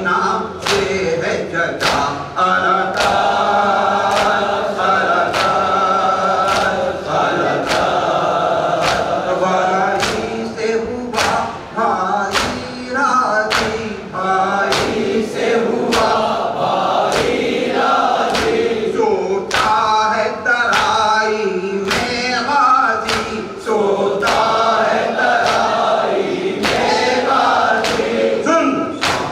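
Men chanting an Urdu noha (mourning lament) in chorus. Rhythmic chest-beating (matam) slaps keep time with the chant at about three every two seconds.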